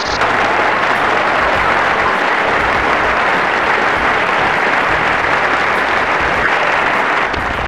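Crowd applauding: steady, dense clapping that cuts off shortly before the end.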